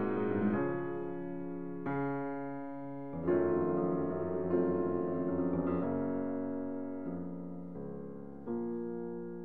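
Slow piano music: a new chord about every second and a quarter, each one fading away before the next.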